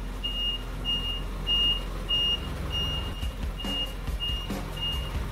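Truck's reversing alarm beeping at an even pace, about three beeps every two seconds, over the low, steady running of its engine as it backs up.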